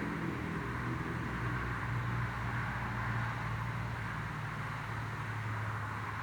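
Steady white-noise ambience: an even rushing hiss over a low, engine-like droning hum, unchanging throughout.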